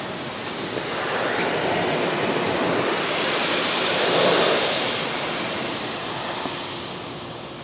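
Water from an automatic car wash spraying over the car, heard from inside the cabin: a steady rushing that swells about four seconds in and fades toward the end.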